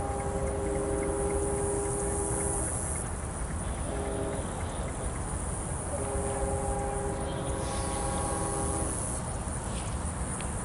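GE B23-7 diesel locomotive's multi-chime air horn sounding in the distance over a low rumble: a long blast that ends almost three seconds in, a short toot about a second later, then another long blast. The long-short-long ending is that of the grade-crossing signal.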